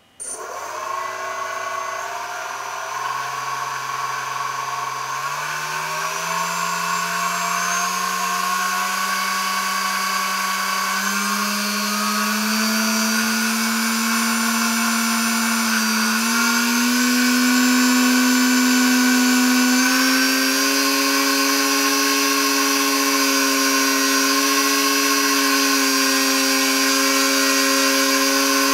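DYS 1806 2300 kV brushless motor spinning a Gemfan 6x4.5 propeller on a thrust stand, starting up right at the start and running as a steady whine with propeller rush. Its pitch climbs in small steps as the throttle is raised stage by stage, at low throttle below mid throttle.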